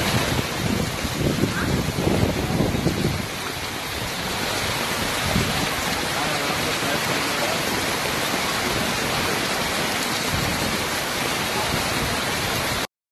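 Heavy rain pouring onto a flooded street, a loud steady hiss, with heavier low rumbling for the first few seconds; it cuts off suddenly just before the end.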